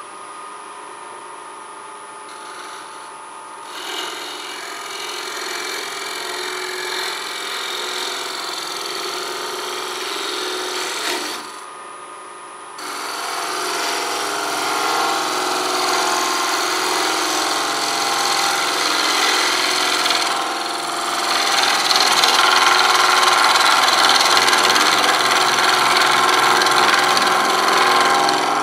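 Wood lathe running with a steady motor whine while a gouge cuts the outside of a very dry elm bowl blank, the shavings hissing off the tool. The cut stops for about a second near the middle and is louder in the last third.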